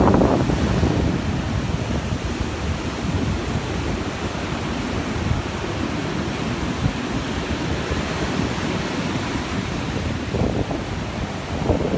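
Ocean surf breaking and washing up a sandy beach, a steady rushing wash, with wind buffeting the microphone. Loudest in the first second, then even.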